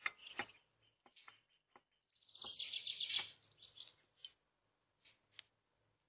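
Small songbirds chirping at the feeders: short high chirps, then a rapid chattering run of notes about two and a half seconds in that lasts over a second, followed by a few single chirps.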